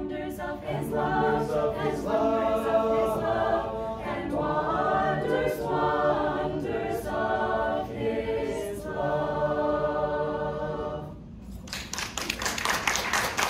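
Mixed male and female voices singing a Christmas carol a cappella in several parts, holding long chords. The singing stops about eleven seconds in, and clapping breaks out near the end.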